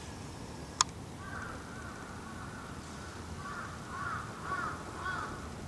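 A sharp click just under a second in, then a bird calling in a string of short, repeated calls for about four seconds.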